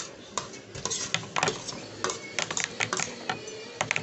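Metal spoon and fork clinking and scraping against a plate, in irregular sharp taps that come in little clusters.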